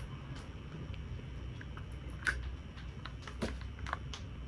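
Faint handling noises of a small freshly opened packet of nose-strip gel, a few sharp clicks scattered over a low steady hum.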